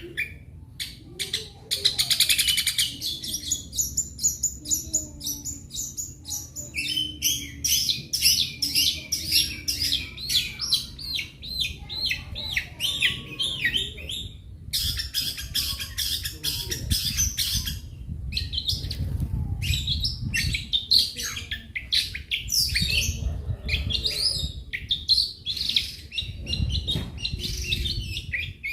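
Long-tailed shrike singing a fast, unbroken rattle of high notes packed with mimicked calls, pausing briefly twice, over a low rumble that comes and goes.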